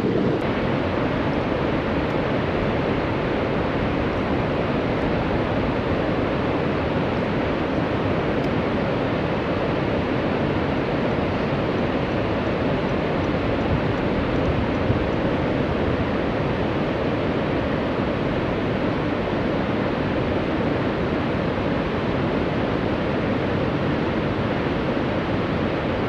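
Steady, unbroken rushing of water pouring over a river weir.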